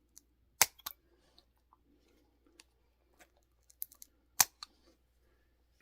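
Pet nail clippers snipping a dog's nails: several sharp clicks, the loudest a little over half a second in and about four and a half seconds in, over faint handling rustle.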